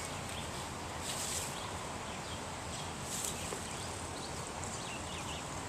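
Steady outdoor background noise, with a couple of brief rustles and a few faint high chirps.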